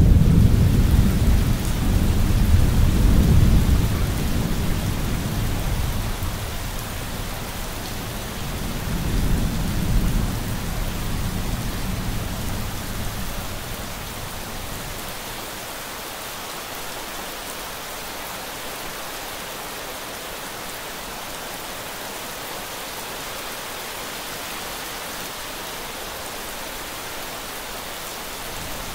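Steady rain with a roll of thunder that breaks in sharply at the start and rumbles for several seconds. The thunder swells again about ten seconds in, then dies away by about halfway, leaving only the rain.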